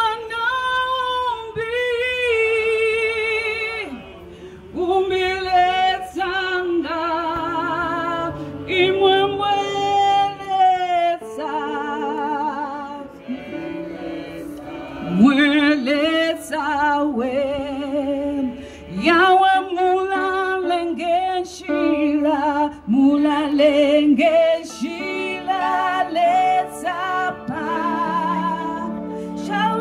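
A woman singing a gospel worship song into a microphone over a PA, her voice wavering with heavy vibrato and gliding between notes in long sung lines.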